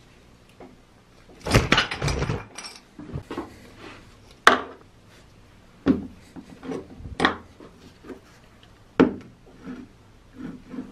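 Metal and plastic parts of an old electric drill being handled and taken apart on a wooden workbench. A cluster of clattering comes about a second and a half in, followed by several separate sharp knocks and clicks as parts are pulled off and set down.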